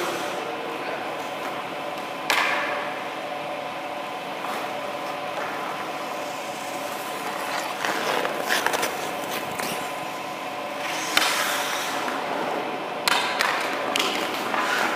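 Ice-hockey goalie skate blades scraping and cutting the ice as he pushes and stops around the crease: sharp scrapes about two, eight, eleven and thirteen seconds in, over a steady hum.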